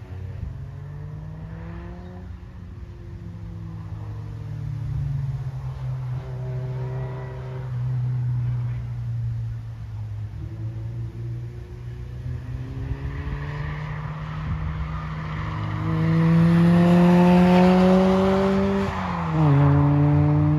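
Engines of several track cars running on a circuit, the pitch rising and falling as they accelerate and ease off. It grows loudest near the end as a car comes close, its pitch climbing, dropping sharply about nineteen seconds in, then climbing again.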